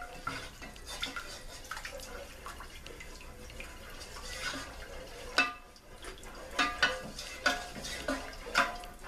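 Wooden spoon stirring a thin milk-and-flour sauce in a pot, the liquid sloshing softly, then the spoon knocking against the pot several times in the second half.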